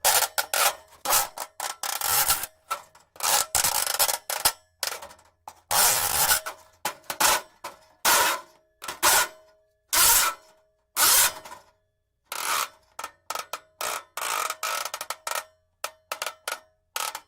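Braided steel cable scraped and slid in a quick run of short, raspy strokes with brief gaps between them, some carrying a faint metallic ring.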